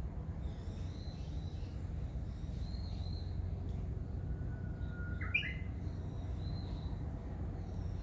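Warbling white-eyes calling: thin, high, short notes repeating about once a second, with a louder call of another bird, rising in pitch, about five seconds in. A low steady rumble runs underneath.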